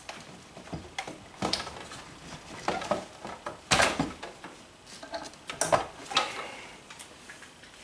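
Handling noise: scattered clicks and knocks of plugs and wiring being handled on a workbench, the loudest about four seconds in.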